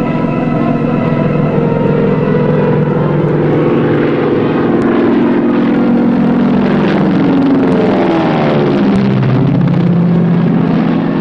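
Propeller float plane's engine droning as it flies past, its pitch dropping about eight seconds in as it passes overhead.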